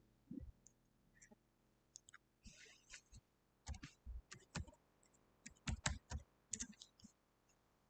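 Faint computer keyboard keystrokes and clicks: a password being typed, with a few scattered taps and then two short runs of keystrokes in the second half.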